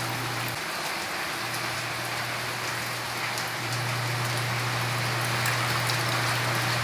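A pot of vegetable soup at a rolling boil: a steady hiss of bubbling with many small pops, over a steady low hum that drops out briefly about a second in.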